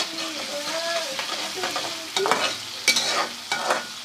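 Ginger-garlic paste and onion sizzling in hot ghee in a kadhai while being stirred. The utensil scrapes and knocks against the pan several times in the second half.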